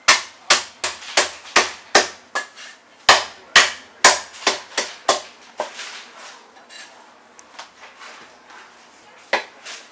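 A steel cleaver chopping cooked salted goose on a thick wooden tree-trunk chopping block: about a dozen sharp chops, two to three a second, for the first five seconds or so. Then only a few faint knocks, and one more loud knock near the end.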